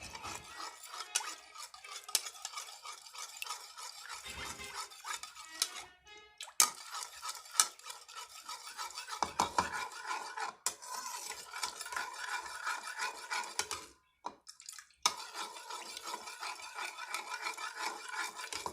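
A spoon stirring a thick molasses-based liquid mixture in a dish, scraping and clinking against the sides. The sound stops briefly twice.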